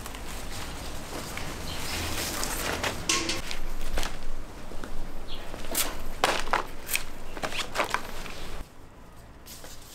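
Leafy branches and stems rustling as they are handled and set into an arrangement, with footsteps and a run of sharp clicks and snaps. The sound drops suddenly to a quieter background near the end.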